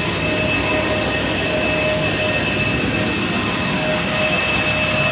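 Steady roar of a jet aircraft turbine, with several steady high-pitched whining tones over it.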